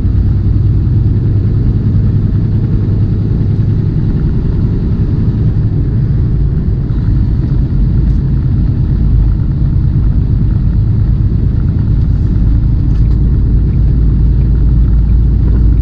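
Semi-truck cab interior at highway speed: the diesel engine's steady low drone mixed with road noise, unchanging throughout.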